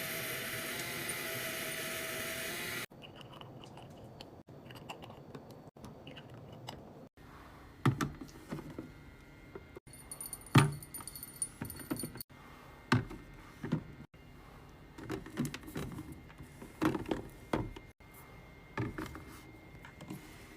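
Sharp clicks, clinks and knocks of drink cans, bottles and packaging being handled and set into a mini fridge, coming irregularly in bursts. The first few seconds hold a steady hiss instead.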